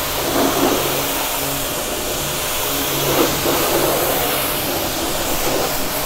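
Starq W8 2800-watt electric pressure washer running steadily, its motor humming under the hiss of a wide fan spray of water blasting against a car door panel and splashing off.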